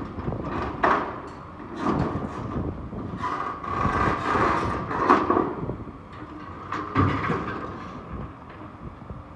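Excavator's demolition shear biting into a steel lattice tower: steel creaking and screeching with several sharp clanks, over the excavator's running engine.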